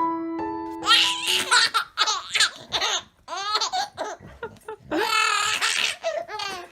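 A baby laughing in repeated high-pitched belly-laugh bursts with short breaks. A few piano notes ring out at the start.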